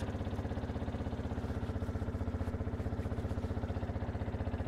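Yamaha WR125's single-cylinder four-stroke engine idling steadily with a rapid, even exhaust pulse. It is running briefly to circulate freshly added oil, and the oil pressure light is out, so oil pressure is up.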